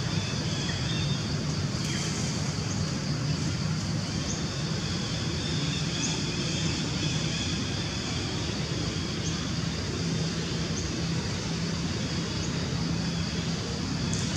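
Steady outdoor background noise: a constant low hum under an even hiss, with faint high chirps now and then.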